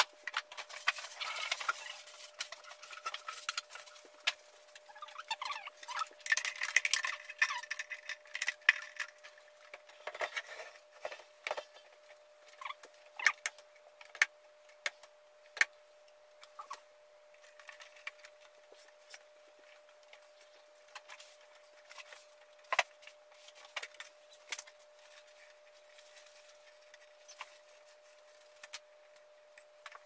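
Irregular clicks, taps and light rattles of hands handling and fitting a built-in appliance into a wooden bar cabinet, busier in the first half, over a faint steady tone.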